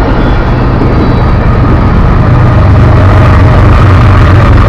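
BNSF diesel freight locomotive passing close by, its engine a steady low rumble over the rolling noise of a train, growing louder over the first few seconds as the locomotive nears.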